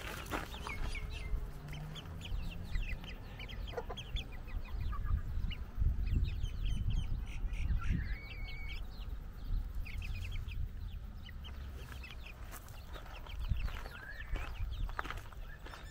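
Chickens, hens with a rooster, clucking in a run of short calls while they forage, over a low rumble that swells about six seconds in.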